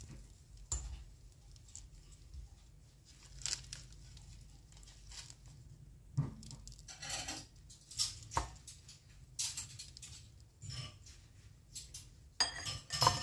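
Banana-leaf wrapper of a lontong rice cake tearing and rustling as it is peeled off with a knife, in scattered short strokes, with the knife cutting pieces of the rice cake near the end.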